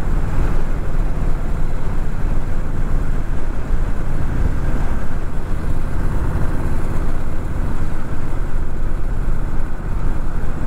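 Honda Rebel 1100's parallel-twin engine running steadily at a cruise of about 35 mph, under wind noise and the hiss of tyres on wet pavement.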